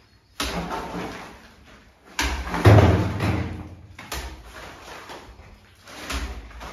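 Plastering trowel working wet plaster: four sudden slapping, scraping strokes about two seconds apart, each fading over about a second, the second the loudest.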